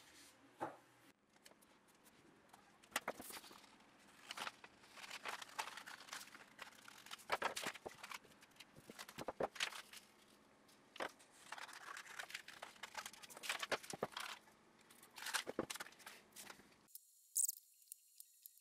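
Paper being handled on a wooden workbench: sheets sliding, creasing and being cut with scissors, in short irregular rustles and clicks. About 17 s in this cuts off, leaving a faint steady high-pitched tone with one brief sharp sound.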